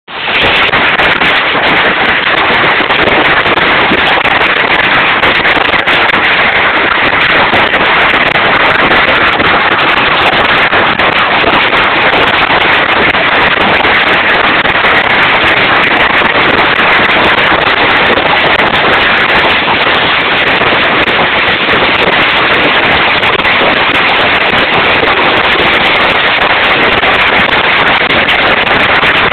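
A heavy hailstorm: hailstones pelting down in a loud, dense, unbroken clatter.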